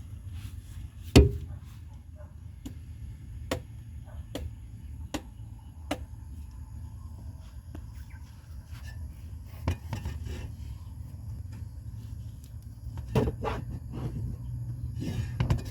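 Repeated sharp knocks of a tool striking, roughly one a second, with a loud strike about a second in and a quicker cluster near the end, over a steady low hum.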